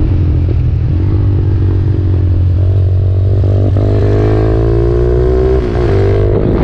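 Motorcycle engine heard from an onboard camera, running hard under acceleration. The revs climb steadily through the middle and dip briefly near the end, with wind rush on the microphone.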